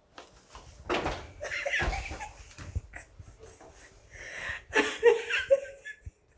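A woman laughing and giggling in short bursts, loudest about a second in and again at about five seconds.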